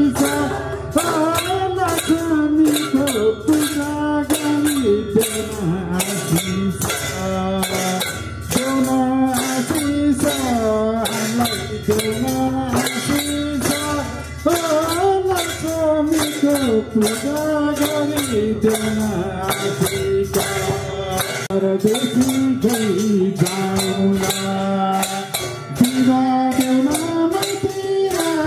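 Voices singing a Nepali Bhailo folk song to a steady beat on madal hand drums.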